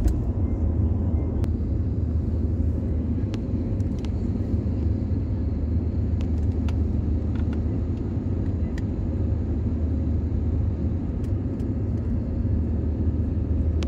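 Cabin noise of an Airbus A320-family jetliner climbing after takeoff: the jet engines' steady low rumble heard from a window seat, with a faint steady hum and a few light clicks.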